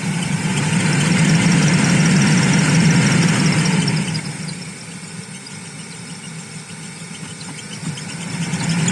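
Toyota Aqua's heater blower fan running with a squeak and whistle. The owner puts it down to a stiff, dry blower motor that needs greasing. It gets quieter about four seconds in and rises again near the end.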